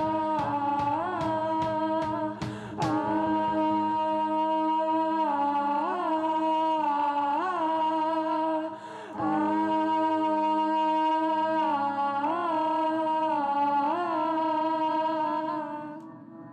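Live band music: a sustained droning note with a swooping pitch bend about every second and a half. A quick ticking beat runs for the first few seconds, and the music fades out near the end.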